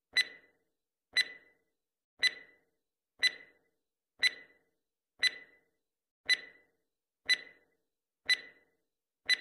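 Countdown timer sound effect: a short sharp tick with a brief ringing tone, once a second, ten times.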